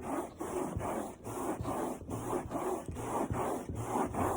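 A Norwex Enviro microfiber cloth rubbed hard back and forth over a smoothie stain, a scratchy swish on each stroke at about two to three strokes a second.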